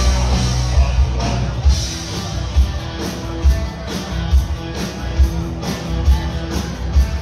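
Live outlaw country band playing: acoustic and electric guitars over a drum kit with a steady kick-drum beat.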